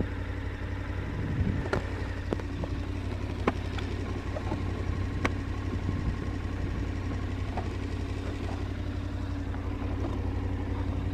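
KTM 1290 Super Adventure's V-twin idling steadily while the bike stands still, with scattered light clicks and knocks from the helmet and its camera being handled.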